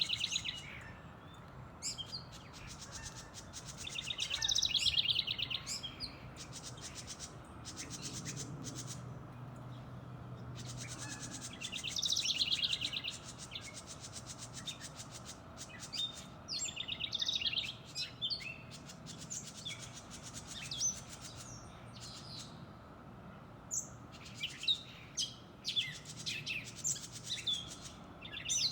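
Small backyard birds calling: bursts of rapid, buzzy chattering every few seconds, then a run of short sharp chips in the second half.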